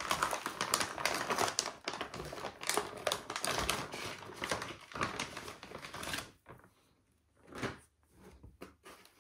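Packaging being unpacked by hand: dense crinkling, rustling and rapid small clicks for about six seconds, then a few separate handling knocks and rustles near the end.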